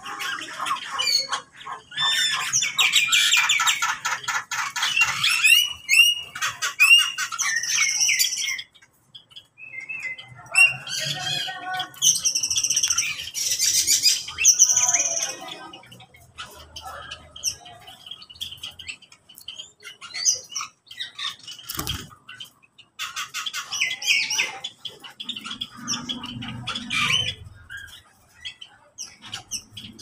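A mixed aviary flock of mynas, starlings and other small caged birds calling over one another: fast chattering runs, high whistled notes and squawks, with short lulls. A single sharp knock about two-thirds of the way through.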